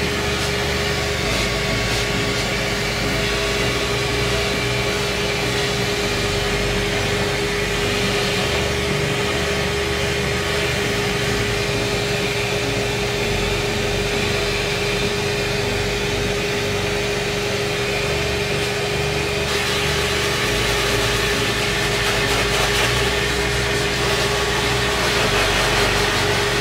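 Pet grooming dryer blowing through its hose with the nozzle off, on a low setting to fluff-dry a puppy's face: a steady rush of air with a constant hum.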